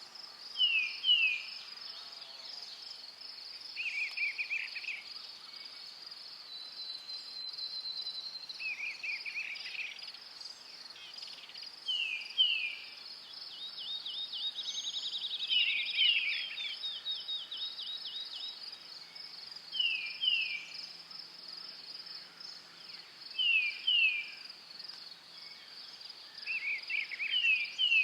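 Crickets chirping steadily in a continuous pulsing high trill. Short high calls, often in quick pairs, break in over it every few seconds and are louder than the trill.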